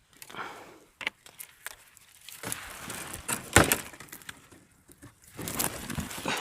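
Rustling and scraping with a few sharp knocks, the loudest about three and a half seconds in.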